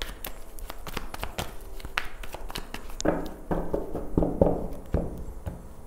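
A tarot deck being shuffled and handled by hand: a run of soft, irregular card clicks and slaps.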